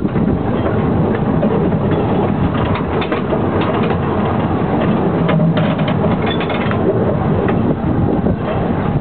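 Narrow-gauge light railway train running, with a steady clatter and rattle of wheels and running gear.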